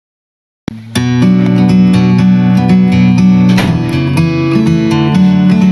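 Dead silence, then background music starts under a second in: strummed acoustic guitar playing the instrumental opening of a song.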